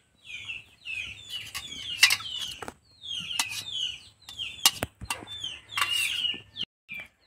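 Chickens calling: a string of short, high calls that fall in pitch, repeated many times, with a few sharp clinks of a spoon against a steel plate.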